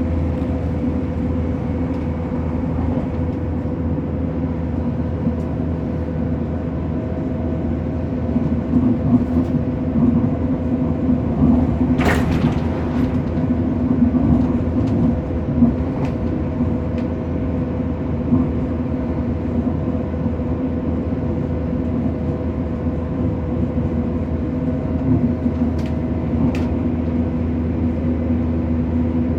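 Passenger train running along the rails, heard from on board: a steady low rumble with a constant humming drone from the running gear. A single sharp click comes a little before the halfway point, and a couple of faint ticks come near the end.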